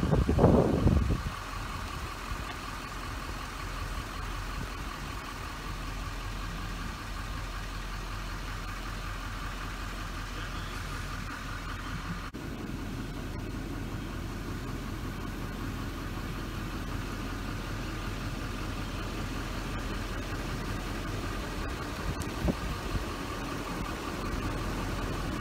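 Steady hum of an idling car engine, heard from the vehicle, with a brief louder rumble in the first second.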